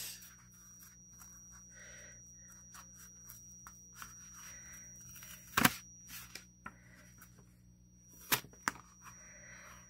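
Quiet handling of a mail package with a photocard inside: faint rustling of the packaging, with a few sharp clicks and taps, one a little past the middle and two close together near the end. A faint steady high-pitched whine runs underneath.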